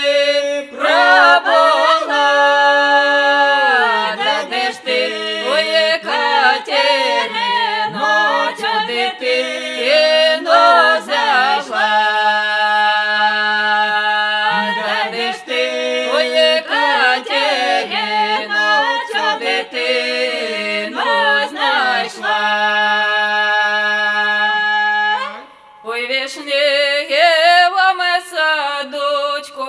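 Unaccompanied folk singing in several voices, two women and a man, a song from the Kyiv region, with one voice holding a steady low note under the moving melody. The singing breaks off briefly about 25 seconds in, then goes on.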